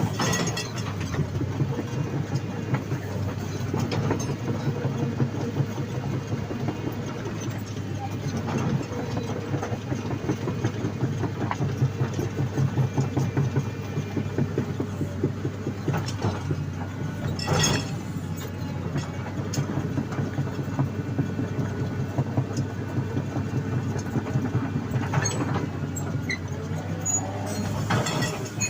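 Excavator's diesel engine running steadily under a rhythmic clatter of its steel tracks as it travels, with a few louder knocks about a second in, at about 17 seconds and near the end.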